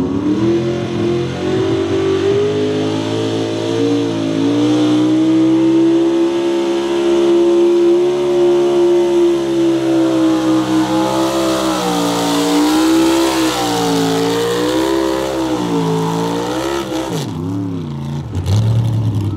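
Lifted Chevrolet mega truck's engine held near full throttle while it pulls a weight-transfer sled. The pitch climbs at the start and holds high and steady, then rises and falls several times. It drops away as the throttle is let off near the end.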